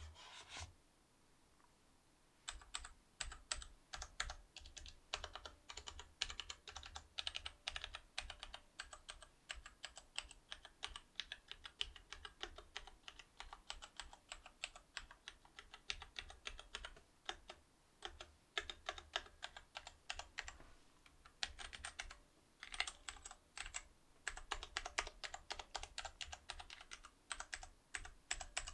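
Typing on a Cherry MX Board 8.0 mechanical keyboard with Cherry MX Silver linear switches: rapid runs of keystrokes that begin a couple of seconds in, with a few short pauses.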